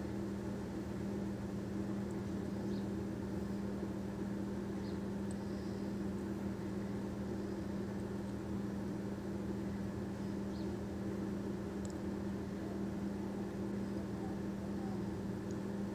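Paneer-and-chip pieces deep-frying gently in oil in a steel kadhai on a low flame, a soft even sizzle under a steady low hum, with a few faint clicks as pieces are set in the pan.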